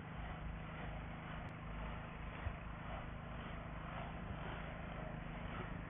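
Solar-panel cleaning robot running along a row of panels: a steady mechanical hum from its drive motor and brush, with a low unsteady rumble underneath.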